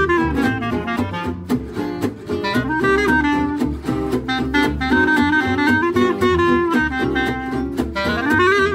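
Gypsy jazz jam: a clarinet plays a melodic line over acoustic guitars strumming a steady beat.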